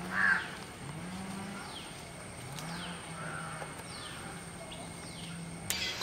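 Farm animal and bird calls. A loud caw comes right at the start, short falling whistle-like calls recur a few times, and underneath a low, drawn-out call rises and then holds, over and over.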